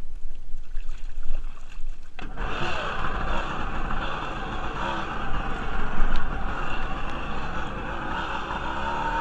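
Kawasaki JS440 stand-up jet ski's two-stroke twin engine running under way, with water rushing along the hull and wind on the camera microphone. For the first two seconds mostly a low rumble is heard, then the sound fills out and gets louder about two seconds in.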